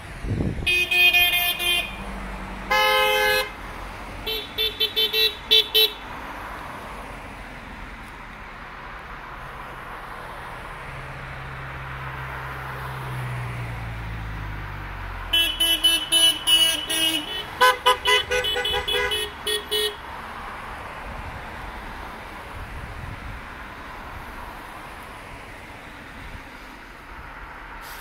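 Car horns from passing convoy cars: a few toots in the first six seconds, then a rapid run of many short honks around the middle. In between, a car goes past with its engine note falling, over steady tyre and road noise.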